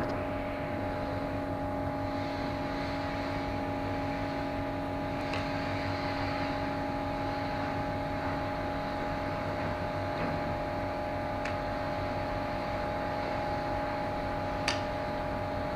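Steady machine hum with a few held tones under it, even in level throughout, and one sharp click near the end.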